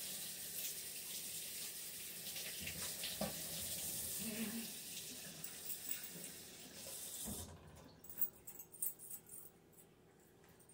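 Water from a kitchen faucet running into the sink as hands are rinsed, shut off abruptly about seven seconds in. A few light clicks follow.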